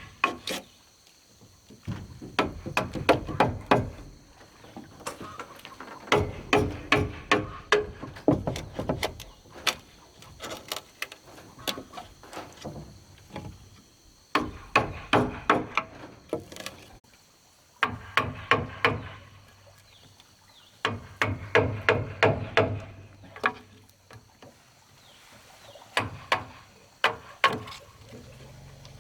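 Bamboo being struck with a hand tool in rapid bursts of blows, several a second, each burst lasting a few seconds with pauses between. The blows ring briefly.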